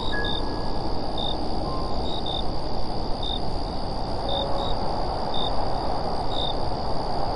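Crickets chirping, short high chirps about once or twice a second, over a steady rushing noise.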